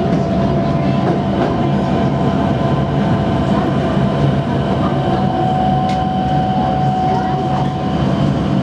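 Electric train heard from inside its rear cab as it rolls over pointwork: a steady rumble of wheels on rail with a few clicks and a faint steady whine.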